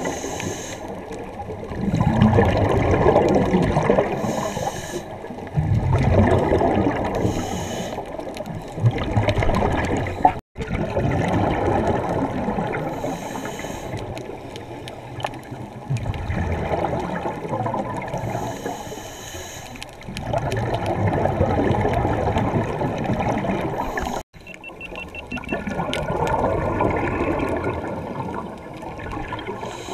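Scuba diver breathing underwater through a regulator: a short hiss on the inhale, then a burst of gurgling exhaust bubbles on the exhale, repeating every five seconds or so. The sound cuts out briefly twice.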